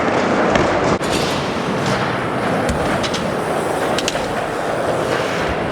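BMX bikes riding the skatepark: a steady rumble of tyres rolling over ramps and concrete, with a few short knocks.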